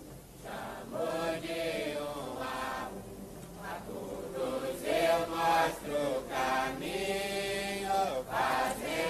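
A congregation singing a Santo Daime hymn, slow and chant-like with long held notes, coming in about a second in.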